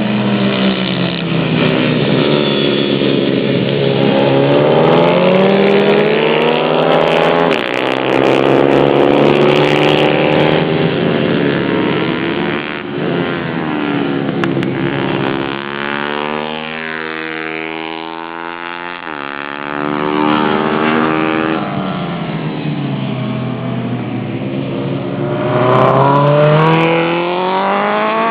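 Pit bike engines (YX 140 cc and 150 cc single-cylinder four-strokes) revving hard, the pitch climbing and then dropping sharply several times as the riders shift gears and brake for corners.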